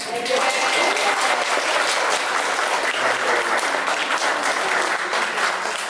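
A congregation applauding: a burst of many hands clapping that starts all at once and holds steady.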